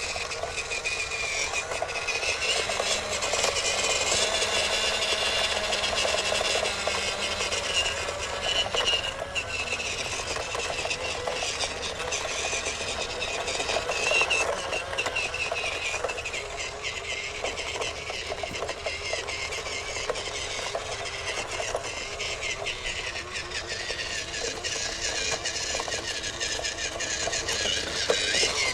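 WPL C34 RC car's 370 electric motor and single-speed gear transmission whining as it drives, the pitch rising and falling with the throttle. Clicks and rattles from the drivetrain and chassis run throughout.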